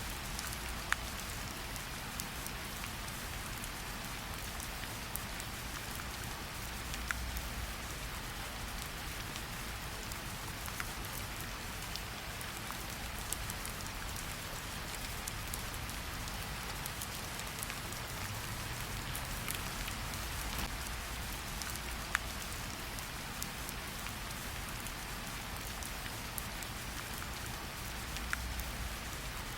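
Steady rain falling, with scattered sharp drop ticks against a surface.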